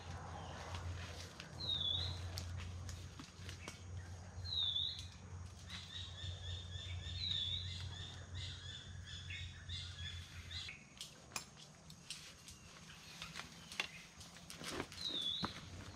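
A bird calling over and over, a short chirp that dips and rises, about every three seconds, with a run of quick repeated high notes in the middle. Light rustling and clicks come near the end as camp gear is handled.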